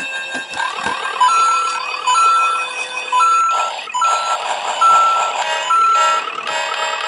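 Electronic sound effects: a short high beep repeating about once a second, six times, over quick rising chirps and a busy background.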